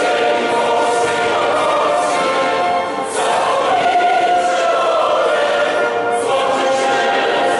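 A large crowd of people singing together in unison, with a short break between phrases about three seconds in.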